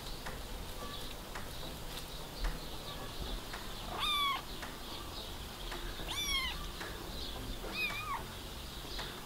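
Young black-and-white kitten meowing three times, short high-pitched mews about two seconds apart.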